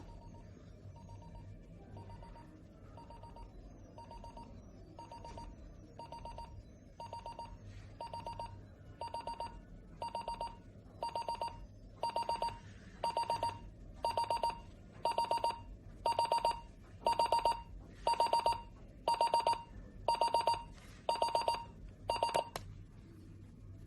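Digital alarm clock's alarm beeping: groups of rapid high beeps about once a second, starting faint and getting steadily louder, then stopping suddenly near the end.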